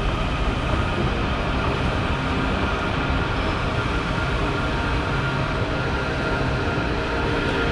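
Metro train in the station, a steady rumble with faint steady tones over it, holding an even level throughout.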